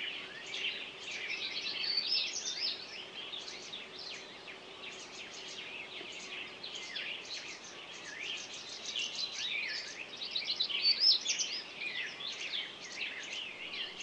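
Spring chorus of many songbirds singing at once: dense overlapping chirps, trills and whistled glides, with no one bird standing out.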